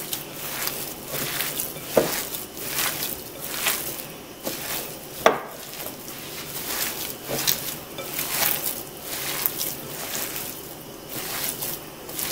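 A hand kneading and squishing raw ground beef mixed with mushroom pâté in a ceramic bowl: irregular wet squelches, with a couple of sharper clicks about two and five seconds in.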